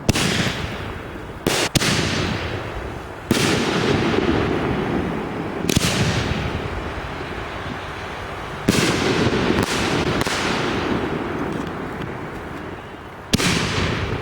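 Fireworks going off outdoors: loud, sharp bangs every one to three seconds, about seven in all, each trailing off in a long fading crackle and rumble.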